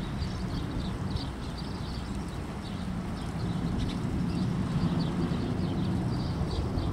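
Steady rain pattering on nearby surfaces, with birds chirping over it again and again.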